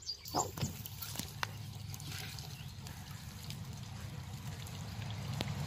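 Hands digging and scooping wet clay at a muddy stream edge, with soft wet squelches and a few clicks over a steady low rumble.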